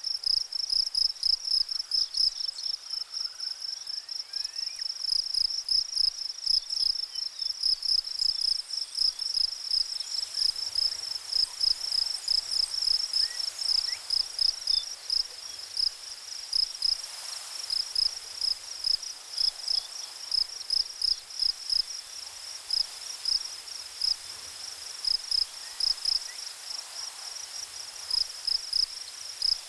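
Insect chirping: a fast, even run of high-pitched chirps repeating several times a second without a break.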